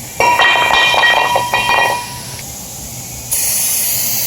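Hammer striking a stuck brake rotor several times in quick succession, the metal ringing, to knock it loose from the hub. About three seconds in, a steady hiss of aerosol brake cleaner spray starts.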